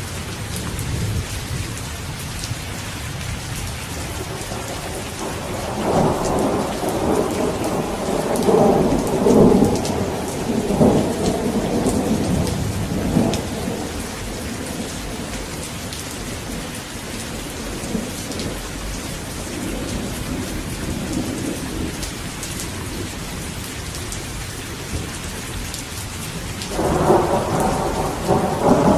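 Steady rain with rolling thunder. A long rumble swells from about six seconds in and fades by about fourteen, a fainter rumble follows around twenty seconds, and a new peal of thunder breaks in sharply near the end.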